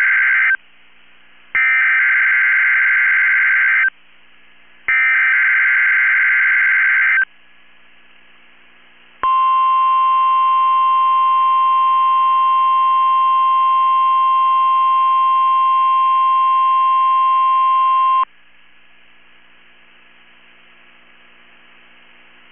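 NOAA Weather Radio EAS (SAME) header: screeching digital data bursts sent three times, each about two and a half seconds long with a second's gap, the first already under way. After a pause comes the steady 1050-hertz weather radio warning alarm tone, held for about nine seconds and cutting off sharply, then a low steady hiss. Together they mark the start of a Required Weekly Test.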